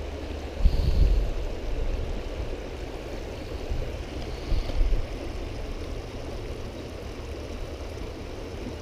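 Steady rush of creek water spilling over a low concrete crossing and rocks. A couple of short low bumps on the microphone stand out, about a second in and again about halfway through.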